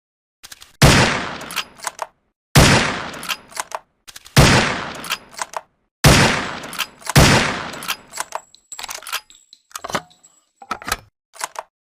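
SRP rifle sound effect: five loud gunshots, each with a long decaying echo, spaced a second and a half to two seconds apart, followed by a series of smaller metallic clicks and clacks.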